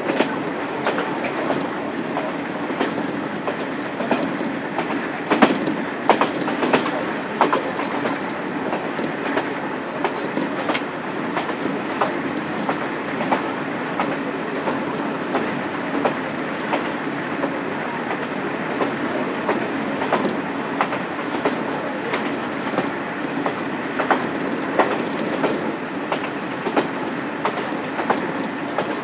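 On-board running sound of a KiHa 47 diesel railcar with its original DMF15HSA diesel engine, travelling at speed: a steady rumble with irregular clacks as the wheels pass over rail joints.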